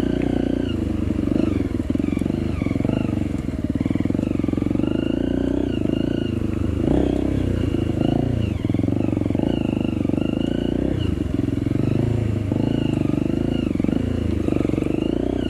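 Off-road motorcycle engine running under way, its revs rising and falling continually as it is ridden over rough ground.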